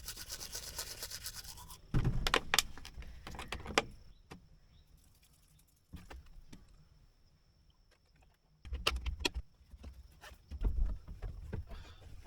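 A fast, even rasp for the first second and a half or so, then scattered knocks, thumps and rustling of gear being handled in a small space. A faint steady high tone runs underneath.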